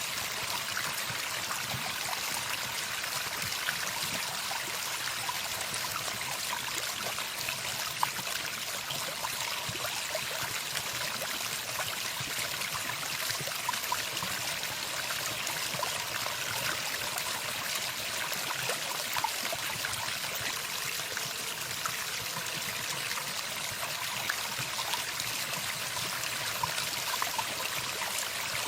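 Steady running water, like a small stream, with small splashes scattered through it.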